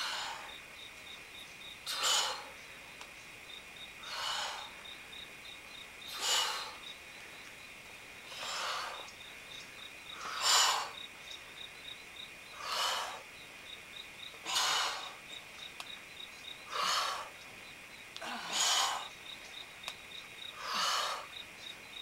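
Sharp breaths out, one about every two seconds, from people working through repeated squats. A steady chirping of insects runs underneath.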